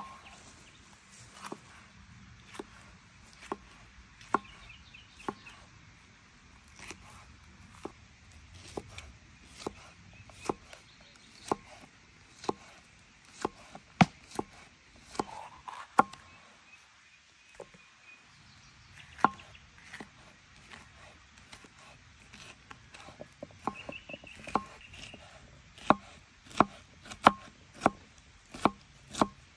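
Chef's knife chopping bell peppers on a wooden cutting board, the blade knocking on the board about once a second, a little faster near the end.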